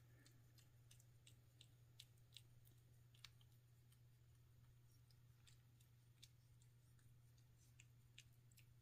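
Near silence with faint, irregular small clicks from a kitten eating at its bowl, over a low steady hum.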